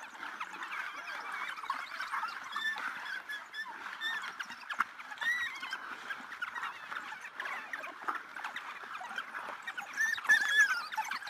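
A pack of African wild dogs twittering: many overlapping high-pitched chirps and squeaks, with a burst of louder calls near the end.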